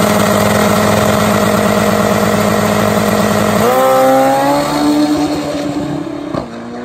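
Turbocharged alcohol-burning 1800cc drag bike engine held at steady high revs on the start line. About three and a half seconds in it launches, its pitch climbing sharply, then fades as the bike pulls away down the strip.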